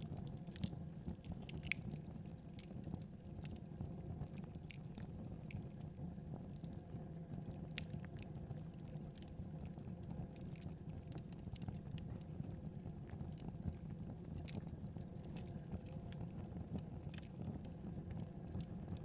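Wood fire burning steadily with a low rumble and frequent sharp crackles and pops throughout.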